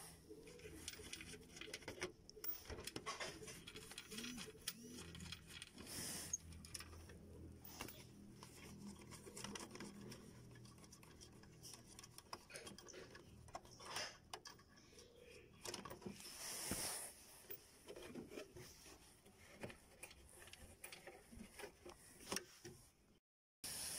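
Faint rubbing and scraping with scattered small clicks: a hand handling a car's plastic under-engine splash shield.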